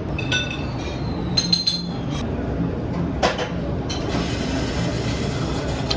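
Several light clinks with short ringing tones, over a steady low rumble.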